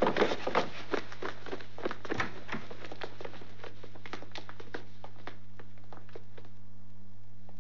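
Quick footsteps of several men running off, the taps fading away over a few seconds. A steady low hum runs underneath.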